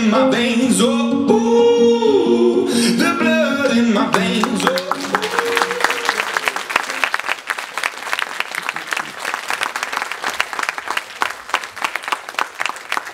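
A song with singing comes to an end about four seconds in. The audience then breaks into steady applause of many hands clapping, which carries on to the end.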